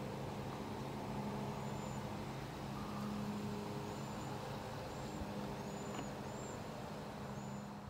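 Outdoor ambience: a steady low mechanical hum under an even background rush, with several short, high chirps scattered through it.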